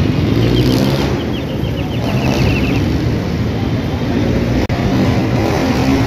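Steady city street noise, the low rumble of road traffic on a busy avenue. A quick run of short high chirps comes through from about half a second in until nearly three seconds in, and the sound cuts out for an instant near the end.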